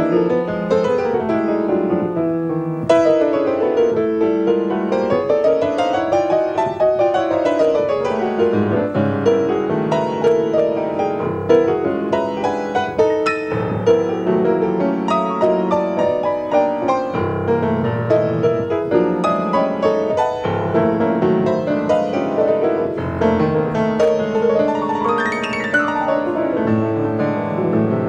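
Solo piano in a free-improvised jazz style: dense note clusters and fast runs. A few seconds in, a sweeping run falls and rises again.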